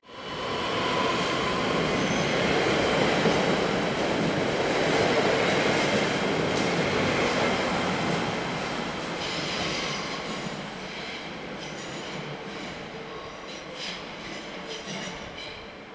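An ÖBB Cityjet electric multiple unit pulls out of an underground station platform. Its running noise is loud for the first half, then fades as it heads into the tunnel, with thin high wheel squeals in the later part.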